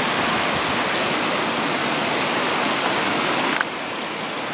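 Steady rushing of floodwater running through a concrete drainage channel after a flash flood. It becomes a little quieter about three and a half seconds in.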